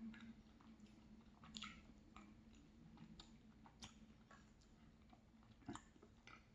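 Faint chewing and wet mouth clicks of someone eating ice cream with almond tart crumble, in irregular small smacks, over a low steady hum.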